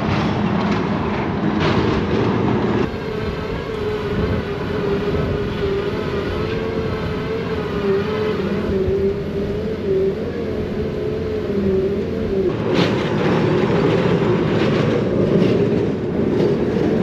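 A huge foundation drilling rig boring into the ground, unbelievably loud: a steady industrial machine noise with a wavering hum for most of the time. After about twelve seconds the hum drops away and the noise turns rougher, with irregular strokes.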